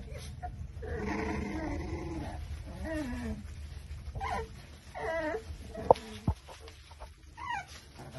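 Young exotic bully puppies whining and whimpering as they play, a longer call about a second in and then several short wavering whines. Two sharp knocks about six seconds in are the loudest sounds, over a steady low hum.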